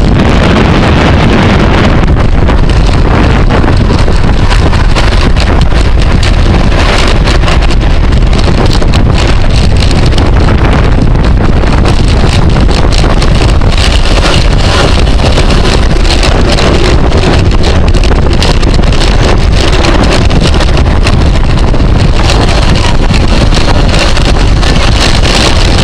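Heavy, steady wind buffeting on the microphone at racing bicycle speed, a loud constant rumble.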